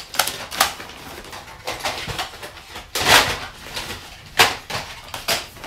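Irregular knocks and clatter of small objects being handled and set down on a table, with one louder, longer clatter about three seconds in.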